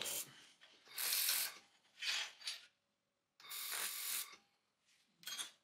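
Handheld laser welder welding sheet metal in short passes: five separate bursts of hissing sound, each about half a second to a second long, with quiet gaps between them.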